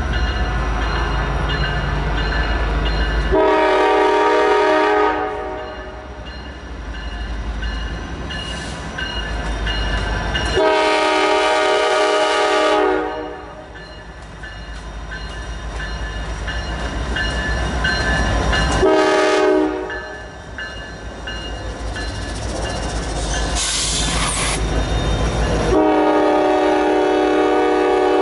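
Norfolk Southern C44-9W diesel locomotive's air horn sounding the grade-crossing signal of two long blasts, a short one and a long one, over the low rumble of the freight's diesels as it approaches.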